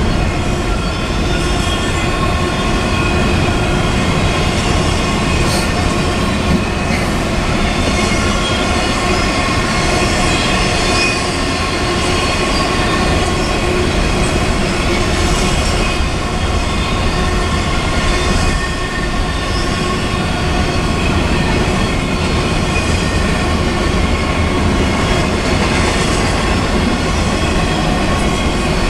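Double-stack intermodal freight cars rolling past at speed: a loud, steady rumble of steel wheels on rail, with a thin high whine held over it throughout.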